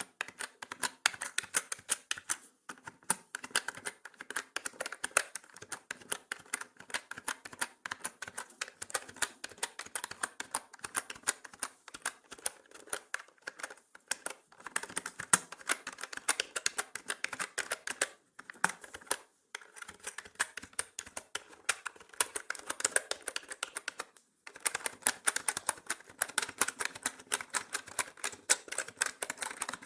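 Mechanical keyboard being typed on: fast, continuous key clicks in runs separated by brief pauses.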